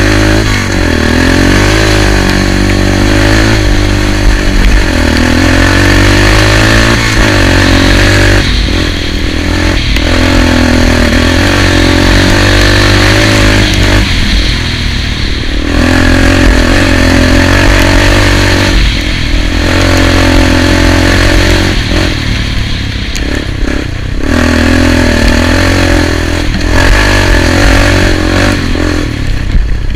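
Off-road motor vehicle's engine running under load, its pitch rising and falling as the throttle is opened and eased off several times.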